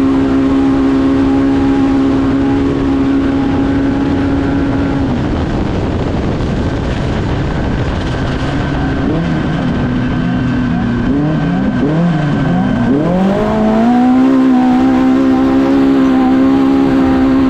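Polaris Factory Pro R UTV engine heard onboard, holding steady high revs. About five seconds in the revs start falling and rising repeatedly as the throttle is worked, then climb back to steady high revs near the thirteen-second mark.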